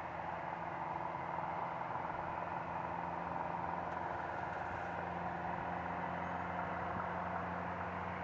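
Boeing 737-800's CFM56-7B jet engines at idle thrust while the airliner taxis after landing: a steady hum and whine with no change in pitch.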